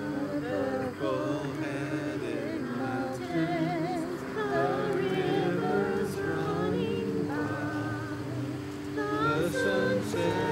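Congregation singing a hymn: several voices together, with a woman's voice carrying a wavering vibrato.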